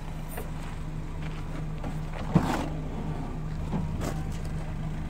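Rear tailgate of a 2000 Honda CR-V being opened by hand. There is a single sharp clunk about two and a half seconds in, then a couple of lighter knocks as the door swings open, over a steady low hum.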